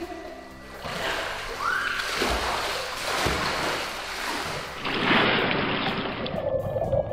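Pool water splashing and sloshing as a swimmer kicks and paddles, with quiet background music underneath. The splashing is loudest about five seconds in, then cuts off abruptly, leaving only the music.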